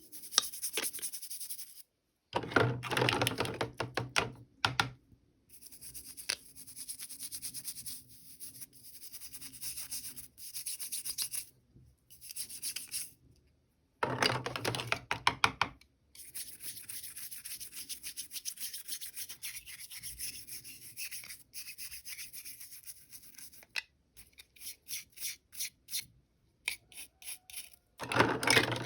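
Packaging and small toy parts being handled and unwrapped, rustling and rubbing in stretches broken by brief gaps, with louder crackly bursts a few seconds in, around the middle and near the end.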